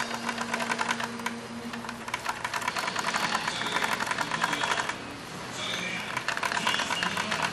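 Industrial car carpet overedge sewing machine (Inderle IDL-4U3) stitching, with a fast, even run of needle clicks that slackens briefly about five seconds in and then picks up again.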